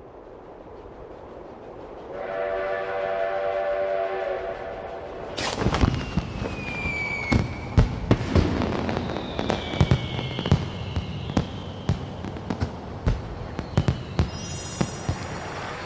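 Sound effects of a steam train and fireworks: rising wind, a steam whistle about two seconds in, then from about five seconds in a train rumbling along with many sharp fireworks bangs and whistling rockets that slide down in pitch, and another high whistle near the end.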